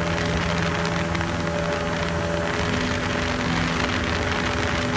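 Cessna 172's piston engine and propeller droning steadily as heard inside the cabin during the climb after take-off, with a rush of air over the airframe.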